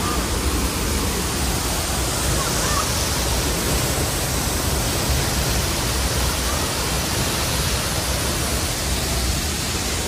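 Waterfall plunging down a cliff face, a steady heavy rush of falling water with a deep rumble underneath.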